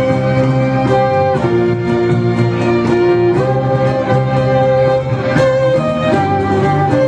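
Live Celtic-fusion instrumental led by violin, holding long bowed notes over a band backing, the harmony changing every second or two with a light steady beat.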